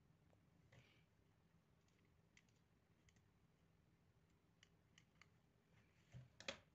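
Very quiet handling sounds: scattered faint clicks and taps of wooden popsicle sticks and a hot glue gun being worked by hand, with a louder double knock near the end.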